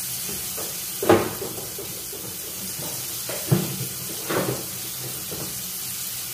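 Overhead kitchen cabinet door being opened and things taken out of it: three sharp knocks, the loudest about a second in and two more in quick succession a little past the middle, over a steady hiss.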